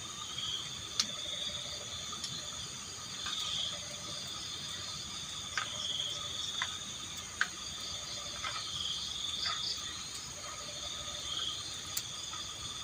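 Crickets and other insects calling in a steady high chorus, with one call swelling and fading every two to three seconds. A few short, sharp clicks sound over it, the loudest about a second in and past the middle.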